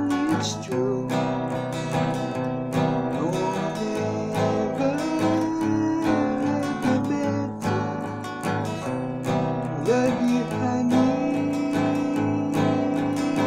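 Steel-string acoustic guitar playing an instrumental passage of a song, picked and strummed in a steady rhythmic pattern over ringing chords.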